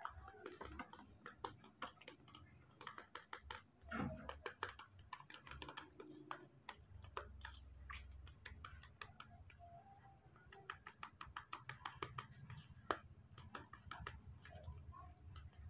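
Faint, irregular soft clicks and smacks from a newborn baby monkey's mouth as it sucks on its hand, with a low hum in the second half.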